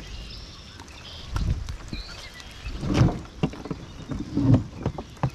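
Irregular low thumps and rustling handling noise from someone walking while carrying a plastic bait bucket by its handle, with a few sharper knocks of the bucket and handle.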